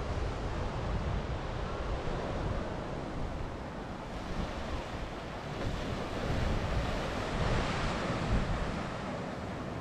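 Small ocean waves breaking and washing against the boulders of a rock groyne, with wind buffeting the microphone. The surf swells louder from about four seconds in, peaking near the end.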